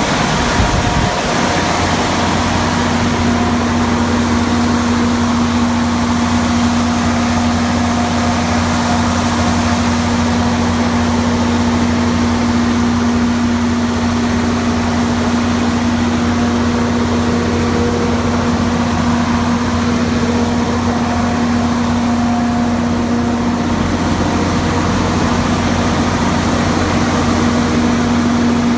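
Cummins 8.3-litre inline-six diesel engine of a 200 kW generator set running at a steady speed, a constant loud hum with a strong steady tone.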